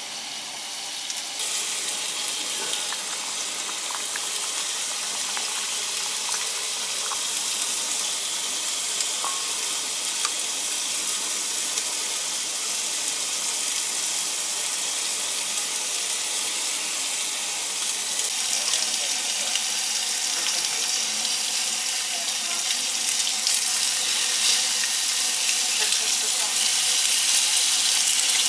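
Pork belly frying on a griddle pan over a gas flame: a steady sizzle with fine crackles, getting gradually louder toward the end.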